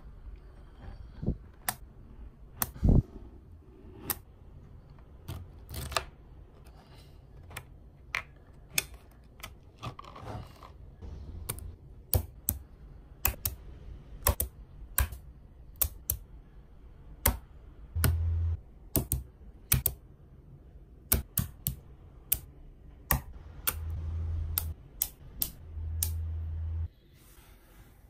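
Small magnet balls clicking sharply against one another at irregular intervals as they are handled, snapped together and stacked. A few brief low rumbles of handling come through in the second half.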